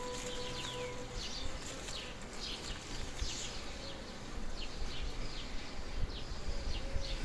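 Insect buzzing steadily, a single tone that stops about a second and a half in, while small birds give short, high, falling chirps about twice a second.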